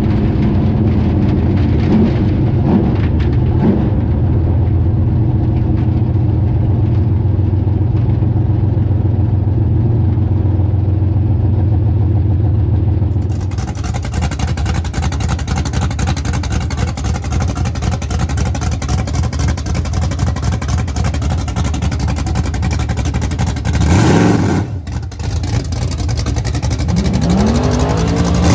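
1976 Chevy Nova drag car's 355 small-block Chevy V8, first heard from inside the car running steadily, then from outside idling, with one quick rev blip past halfway and revs climbing again near the end as it goes into a burnout.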